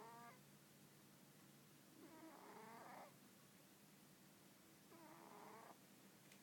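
A sleeping cat snoring: two faint snores, each about a second long and roughly three seconds apart.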